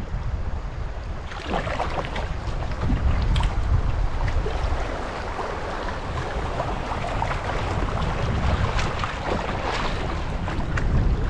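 Water rushing and splashing along a canoe's hull as it runs a shallow riffle, with a few sharper splashes from double-bladed paddle strokes. A low rumble of wind on the microphone lies under it, and the rushing gets louder about a second in.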